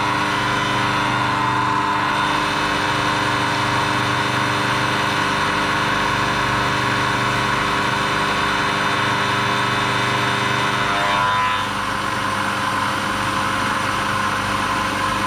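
Manual milling machine running: a steady motor hum with a whine over it. About eleven seconds in, a brief falling whine sounds and the machine noise eases slightly.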